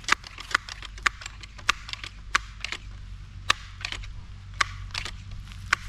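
Multi-pump .177 air rifle being pumped up and loaded: a run of sharp mechanical clicks and clacks from the pump lever and action, coming irregularly about two or three times a second over a low steady hum.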